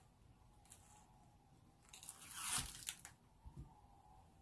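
Mesh lei netting rustling and crinkling as hands handle it, in one burst of about a second near the middle, with a few faint clicks around it.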